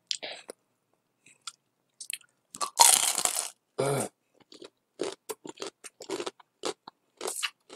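Biting into and chewing a crispy deep-fried ngohiong roll, close to the microphone. A loud crunch comes about three seconds in, followed by a run of short crunches as it is chewed.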